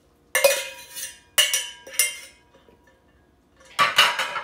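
Metal spoon clinking and scraping against a stainless steel saucepan as hot marinade is scraped out of it: a few sharp strikes with a short ring, about a second apart, then a quick cluster near the end.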